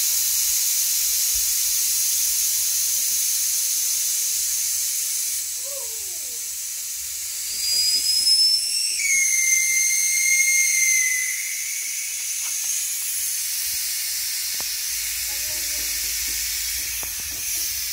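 Air hissing out of the valve of a Mercedes collapsible spare tyre as it deflates. About halfway through, a whistling tone joins the hiss for a few seconds.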